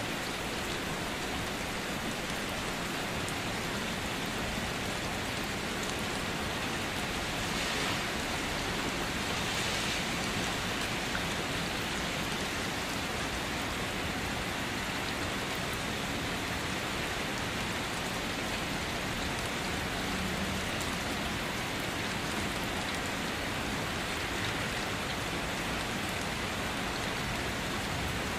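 Steady rain falling, an even hiss, briefly louder about eight and ten seconds in.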